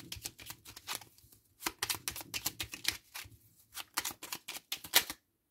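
A deck of oracle cards shuffled by hand: a rapid, irregular patter of sharp card clicks that stops abruptly shortly before the end.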